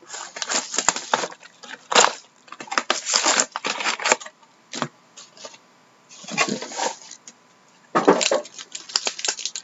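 Plastic shrink wrap being torn off a cardboard trading-card hobby box, then the box flap opened and the card packs pulled out: rapid crinkling and tearing crackles in clusters, dense for the first few seconds, a short burst about six seconds in and more near the end.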